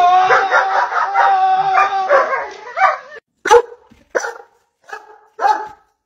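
A dog howls in one long, wavering, pulsing run for about three seconds, which cuts off abruptly. Then a Doberman barks four times, in short sharp single barks.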